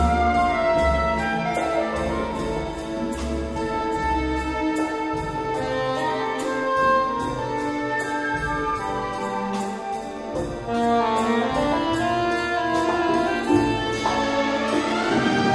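Soprano saxophone playing a melody over a full symphony orchestra, with an even pulse of about two and a half beats a second in the accompaniment. Near the end the music rises in a sweep.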